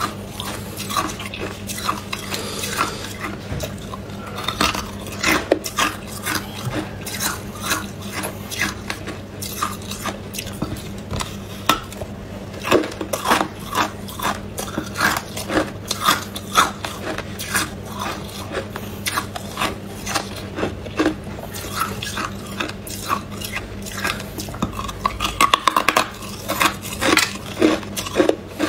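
Hard ice being bitten and crunched between the teeth: a dense, uneven run of sharp cracks and crunches, several a second, growing busier near the end.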